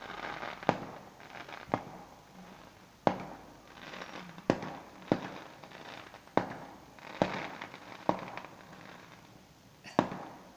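Fireworks going off: about nine sharp bangs at irregular intervals, with crackling between them.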